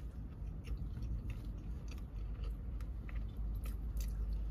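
A person chewing a mouthful of soft cake donut with the mouth closed: small, irregular wet clicks, fairly quiet, over a low steady hum.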